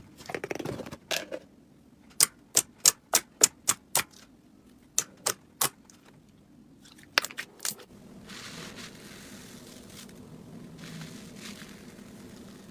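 Slime being pressed and squeezed by hand, giving a series of sharp clicking pops as trapped air bursts. From about eight seconds in it gives way to a softer, steady squishing hiss.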